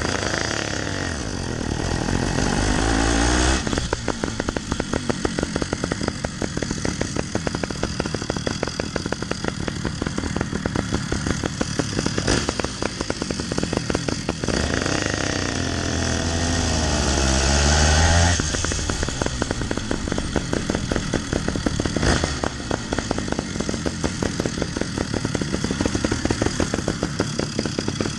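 Twin Phantom 85 two-stroke bicycle engines running together on a motorized bicycle under way, a dense, rapid popping. The revs climb twice, over the first few seconds and again for a few seconds around the middle, each time dropping back suddenly.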